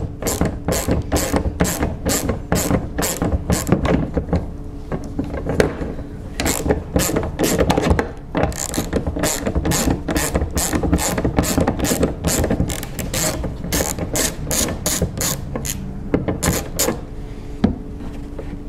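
Hand ratchet with a 10 mm socket clicking in repeated runs as it backs out the bolt holding an antenna amplifier module. The clicking pauses briefly about eight seconds in and stops shortly before the end.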